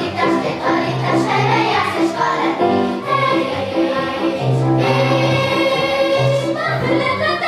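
Children's choir singing with piano accompaniment, the low piano notes repeating steadily under the voices; about midway the choir holds one note for around two seconds.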